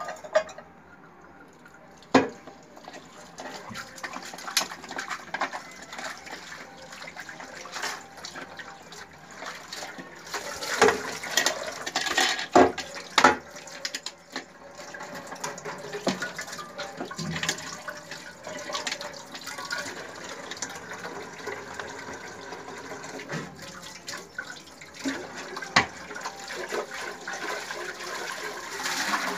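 Water running from a kitchen tap while a pressure cooker lid and pot are rinsed under it, with sharp metal clanks of the cookware against the sink now and then, loudest near the middle.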